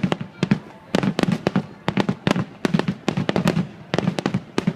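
Aerial fireworks bursting: rapid clusters of sharp bangs and cracks, several a second, coming in waves about every second.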